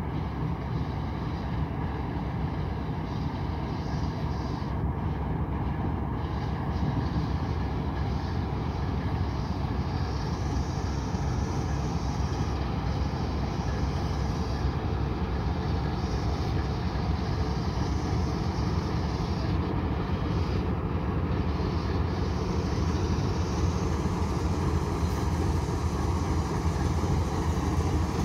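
Freight train passing: a CSX diesel locomotive's engine runs with a steady low rumble over the rolling noise of wheels on rails. It grows slightly louder toward the end as the locomotive draws level.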